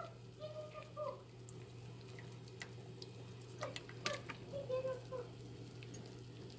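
Soy sauce poured from a bottle into a pot of broth, a faint trickle of liquid, over a steady low electrical hum, with a few faint brief sounds about a second in and again near the middle.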